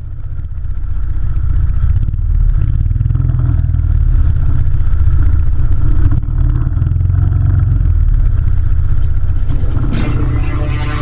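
Go-kart engine running under way, heard through a camera mounted on the kart: a loud, steady, deep rumble. New music comes in near the end.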